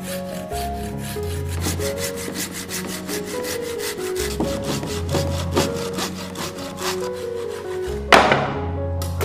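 Hand saw cutting through a dry log with fast, even back-and-forth strokes. Near the end there is a single loud knock.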